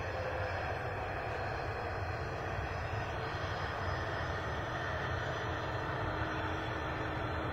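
Jet engines of a regional jet with rear-mounted engines as it rolls along the runway: a steady rushing noise with a low rumble underneath.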